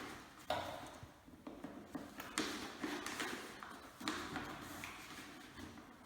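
Handling noises as a paper dust bag with a cardboard collar is worked onto the inlet nozzle inside a plastic wet/dry vacuum drum: a few light taps and knocks, each followed by a short rustle of paper.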